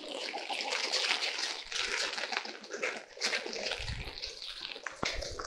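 Rain falling with water dripping and splashing, a steady hiss dotted with small drips.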